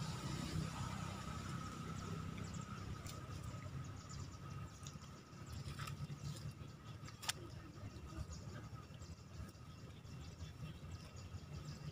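Outdoor background: a steady low rumble with a thin, constant high tone over it, and a few faint clicks, the sharpest about seven seconds in.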